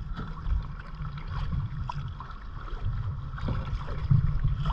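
Wind buffeting the microphone during kayak paddling on the sea, a choppy low rumble, with faint small water sounds from the paddling.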